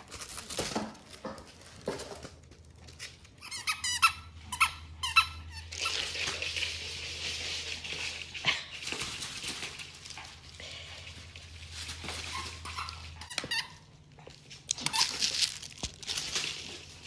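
Dogs chewing no-stuffing squeaky dog toys with crinkle material inside. A quick run of squeaks comes a few seconds in, then a long stretch of crinkling, with more crinkling and a few squeaks near the end.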